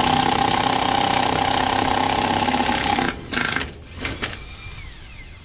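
Cordless impact wrench hammering on a trailer wheel's lug nut for about three seconds, then two short bursts. Its battery is running low, which is slowing the work of breaking the nuts loose.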